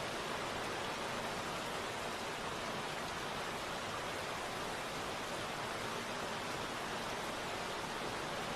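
Steady rain, an even hiss with no separate drops or gusts standing out.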